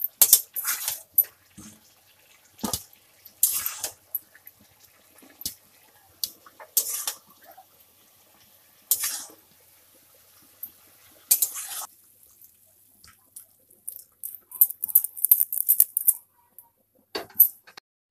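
A metal spoon scraping and clinking against a metal kadai in short, irregular bursts with quiet gaps, as fried cabbage and potato are scooped out of the pan into a bowl.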